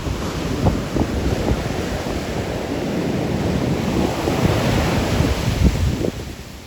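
Rough post-storm ocean surf breaking and washing up the beach, the hiss of the wash swelling through the middle and easing near the end, with wind buffeting the microphone.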